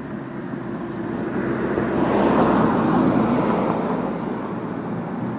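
A passing motor vehicle: steady engine hum with a rush of noise that swells to a peak about halfway through, then fades.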